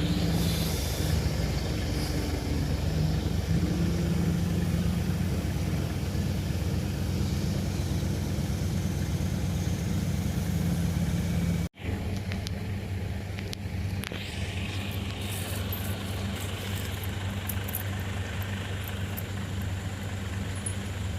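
Heavy machinery engine running steadily with a low hum, cutting out for an instant about halfway through.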